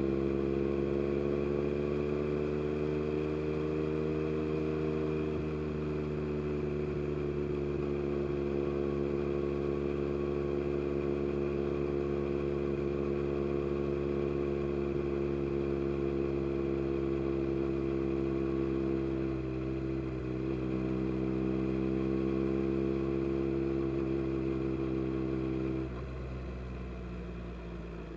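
A 2022 Yamaha MT-09 SP's three-cylinder engine, heard through an Akrapovic carbon race exhaust, pulls hard at high, almost constant revs, its note rising a little and then easing slowly. About two seconds before the end the engine note drops and goes quieter, as the throttle comes off.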